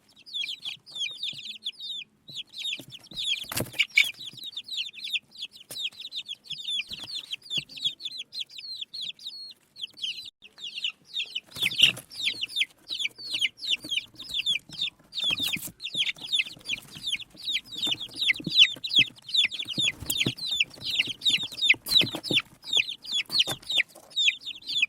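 A group of baby chicks peeping without pause: many short, high peeps, each sliding downward and overlapping one another. A few sharp knocks stand out now and then.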